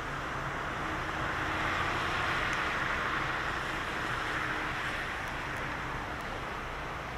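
A vehicle passing on the road: a rushing tyre-and-engine noise that swells about two to three seconds in and then slowly fades.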